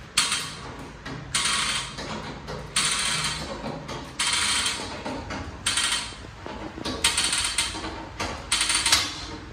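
A 2.5-ton hydraulic floor jack being pumped to raise a motorcycle lift: repeated strokes about one every second and a half, with the lift's scissor frame and notched safety rod ratcheting as it climbs toward its first locking slot.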